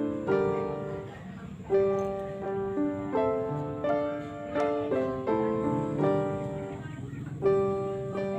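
Gentle background piano music: a slow phrase of ringing notes, each struck and fading, repeating about every second and a half.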